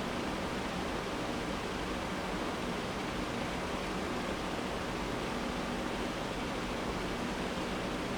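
Steady, even hiss with a faint low hum underneath: the background noise of the room and the recording, with nothing else happening.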